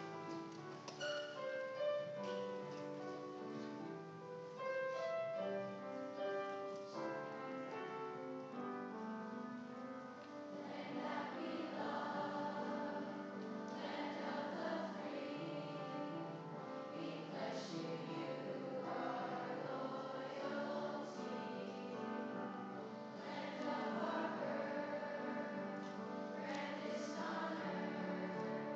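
School chorus singing a patriotic song, the voices fuller and a little louder from about ten seconds in.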